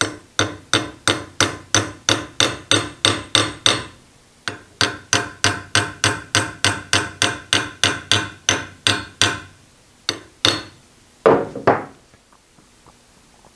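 Small hammer tapping a punch held against the cast-iron bed of a Hardinge Cataract bench lathe, quick ringing metallic taps about four a second in two long runs, then a few single taps and one louder knock near the end.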